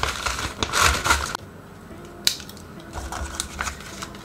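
A clear plastic vacuum storage bag and silica gel desiccant packets rustling and crinkling as they are handled, for about a second and a half. Then it goes quieter, with one sharp click about two seconds in.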